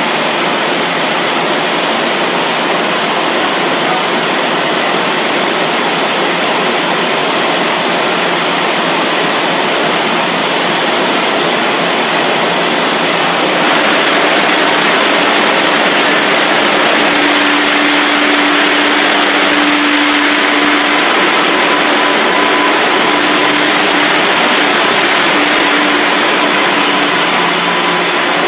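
MBTA subway train running, a steady noise of wheels on rails. It gets a little louder about halfway through, when a steady low hum joins it.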